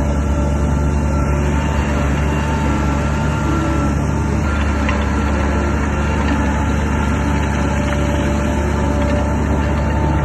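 Heavy diesel engine of an earthmoving machine running steadily at a constant pitch.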